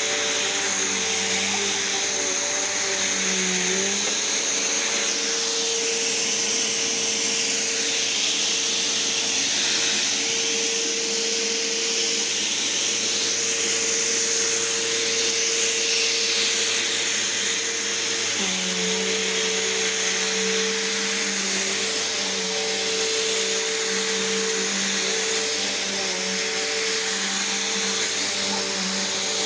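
Upright vacuum cleaner running steadily, its motor giving a constant hum over a rushing hiss. The hum's pitch shifts slightly about four seconds in and again past the halfway mark.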